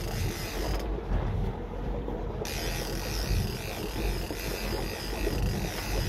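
Fishing reel working as a hooked fish is fought on a bent trolling rod, giving a mechanical ratcheting creak. Under it, a steady low rumble from the boat and wind on the microphone.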